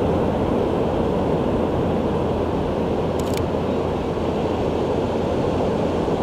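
Steady low rushing noise of open beach ambience, with a quick run of camera shutter clicks about three seconds in.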